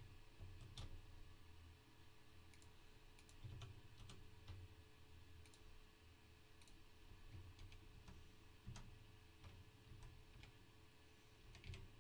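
Faint, irregular clicks of a computer mouse and keyboard, about a dozen in all, with a quick pair of clicks near the end.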